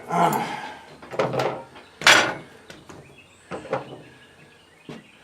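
Steel parts of a yard cart knocking and clattering as the rear axle is worked out of the frame: a handful of sharp knocks, the loudest about two seconds in, growing fainter toward the end.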